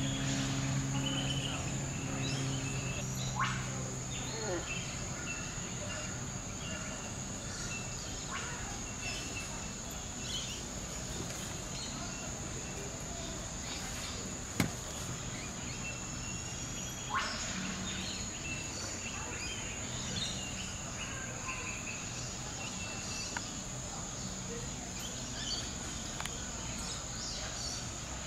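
Steady high-pitched insect chirring, with scattered short bird chirps and a few sharp clicks, the loudest about halfway through.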